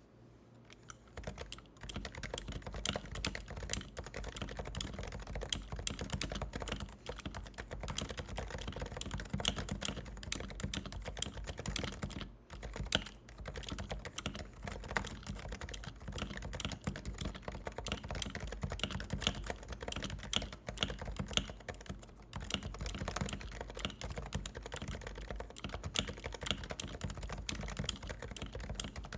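Continuous fast typing on a Topre Realforce 87U silent-model keyboard: a dense, irregular run of muted keystroke clicks from its electro-capacitive switches, starting about a second in.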